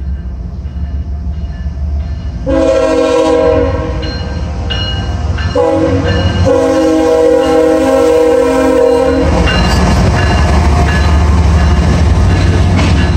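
Diesel freight locomotive horn sounding three blasts for a grade crossing, the second short and the last about three seconds long, over a low engine rumble. Then the locomotives pass close by with loud engine rumble and wheel noise on the rails.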